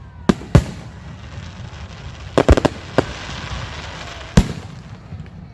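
Fireworks display shells bursting: two bangs in quick succession about a quarter-second and half-second in, a rapid cluster of cracks around the middle, and another single bang near the end.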